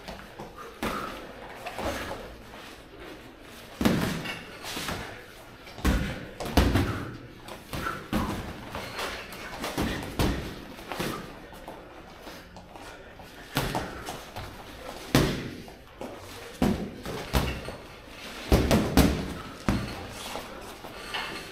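Boxing sparring: padded thuds of gloved punches landing at irregular intervals, several in quick flurries of two or three, along with the boxers' footwork on the ring canvas.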